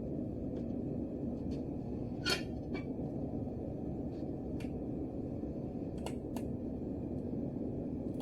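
Steady low rumbling noise with a handful of short, light clicks scattered over it, the sharpest about two seconds in.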